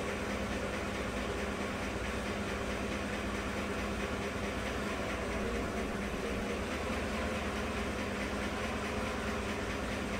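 2015 GMC Sierra's direct-injected 5.3-litre V8 idling steadily during an injector flow test, with valve-train noise that the mechanic doesn't like.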